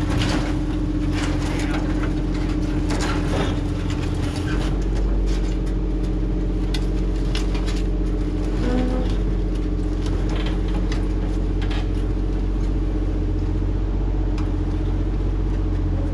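Excavator's diesel engine running at a steady speed, with scattered knocks and clanks, most of them in the first few seconds.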